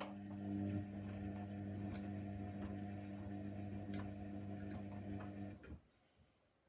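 Hoover Nextra washing machine running with a steady hum that cuts off suddenly near the end, with a faint tick about every two seconds.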